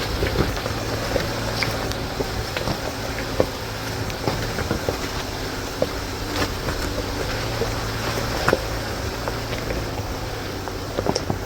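Jeep engine running steadily, with scattered sharp clicks and knocks over it.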